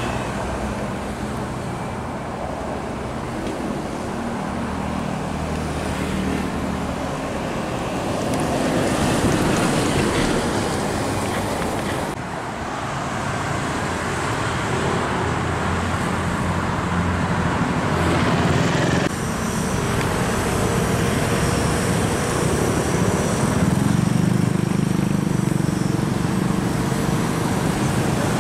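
Expressway traffic: heavy trucks and cars passing, with truck engines running low and a steady rush of tyre noise. The sound shifts abruptly about twelve and nineteen seconds in.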